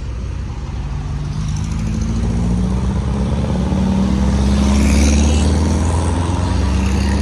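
Air-cooled Volkswagen Beetles driving past one after another, their flat-four engines running as they pull away. The engine sound builds and is loudest about five seconds in, as one Beetle passes close.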